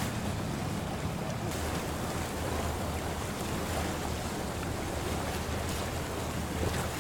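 Water washing past a boat under way, with wind and a steady low hum.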